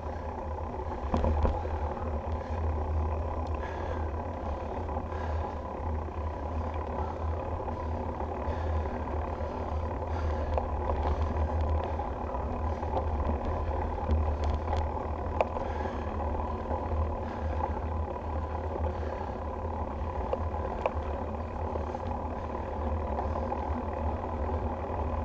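Bicycle rolling along a paved trail: steady wind noise on the handlebar camera's microphone with the hum of the tyres on the pavement. A few sharp knocks come as the wheels go over bumps and cracks in the path.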